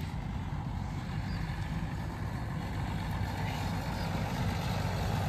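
A bus engine running steadily, a low rumble.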